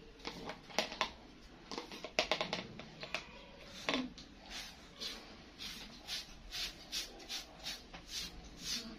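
Short, scratchy strokes of a toothbrush brushing dye into dreadlocks. They come irregularly at first, then settle into a steady rhythm of about two to three strokes a second.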